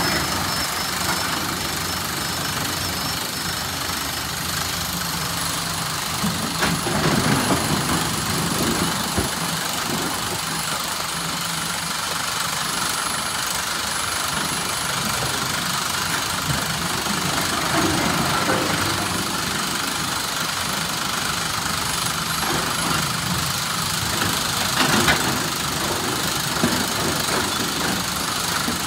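SANY SY365H Pro excavator's diesel engine running steadily, with a few short louder knocks about a quarter of the way in and again near the end.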